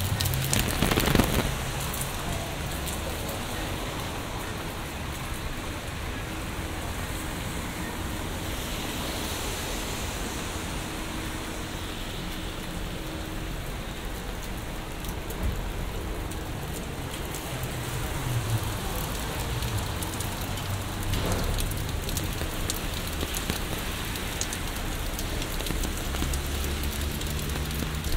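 Steady rain pattering on an umbrella overhead and falling on a wet city street, over a low rumble of traffic. There is a brief louder rush about a second in.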